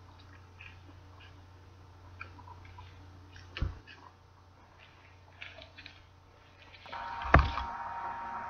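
Quiet handling noises as makeup tools are put down and picked up: faint ticks and two soft knocks, one about halfway through and one near the end, over a low steady electrical hum. A steady hiss with a faint whine comes in near the end.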